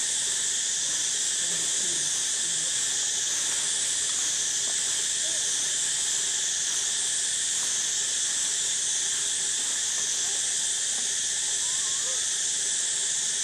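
Steady chorus of forest insects, a high buzzing drone with a slow, even waver, with a few faint short chirps over it.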